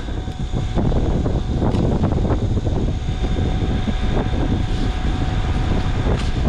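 Loud rushing rumble of air buffeting the microphone, with a faint steady hum above it; it grows louder about a second in and then holds steady.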